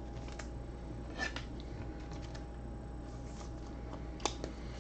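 Trading cards being handled: a few faint clicks and short rustles of card stock, the loudest about a second in and near the end, over a steady low hum.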